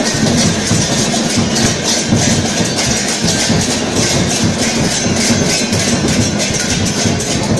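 Many large brass hand cymbals clashed together continuously, making a loud, dense metallic din.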